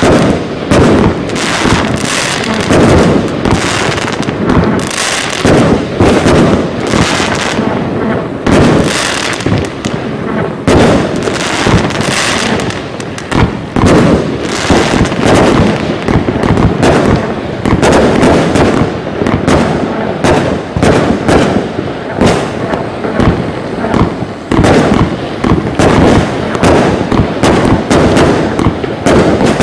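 HERON Cake 456 Category II firework cake batteries firing a continuous rapid string of shots, with launch thumps and bursting, crackling stars following one another several times a second without a pause.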